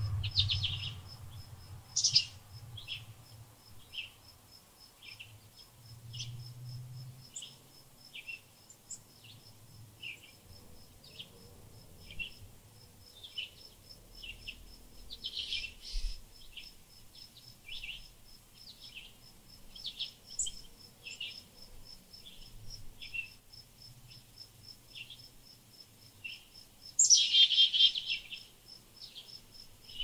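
Small songbirds chirping, short high calls about once a second with a few louder flurries, the longest near the end, over a steady, evenly pulsing insect trill.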